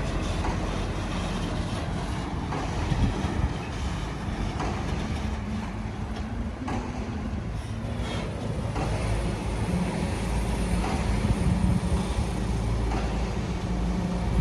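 Heavy diesel construction machinery running steadily, its engine drone growing stronger in the second half, with a few scattered clanks.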